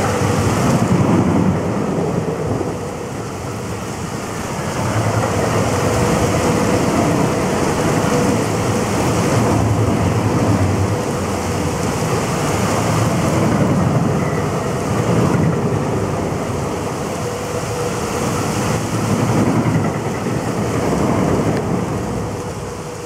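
Heavy downpour of rain splashing on a paved path, a dense steady hiss that swells and eases every few seconds, with a low rumble underneath that comes and goes.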